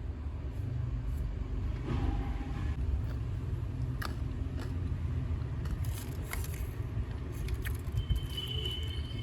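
A steady low rumble with scattered light clicks and faint crinkles, typical of food packaging being handled.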